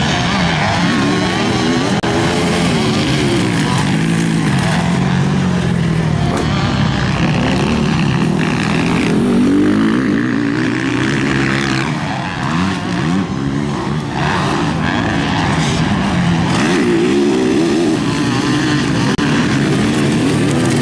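Several motocross bikes racing on a dirt track, their engines revving up and down and overlapping, the pitch rising and falling continually as the riders accelerate and back off.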